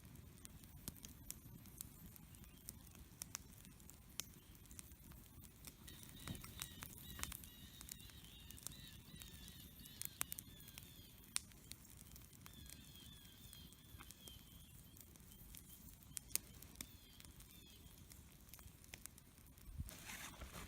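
Quiet outdoor ambience: scattered small clicks and crackles over a low rumble, with faint repeated bird chirping from about six seconds in until near the end.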